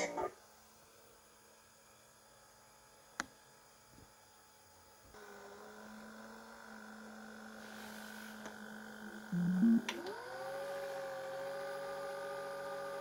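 Aiwa HV-M10SH VHS player's tape mechanism working. A click, then a low hum starts about five seconds in. A couple of loud clunks follow, and then the motor spins up with a rising pitch and settles into a steady whine, as in fast winding of the tape.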